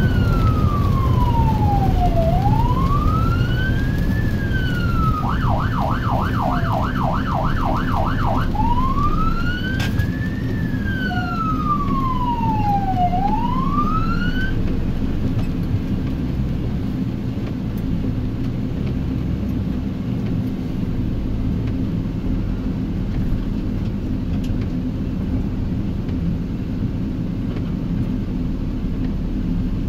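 Ambulance's electronic siren heard from inside the cab, running Code 3. It gives a slow wail rising and falling about every four seconds, switches for about three seconds to a fast yelp at about four sweeps a second, goes back to the wail, then shuts off about halfway through. Steady engine and road rumble on wet pavement continues underneath.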